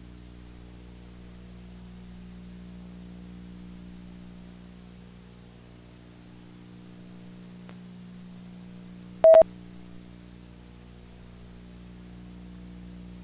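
Steady electrical hum made of several low tones, with a faint hiss, on an otherwise silent film transfer. About nine seconds in, a short, loud beep with a click cuts across it.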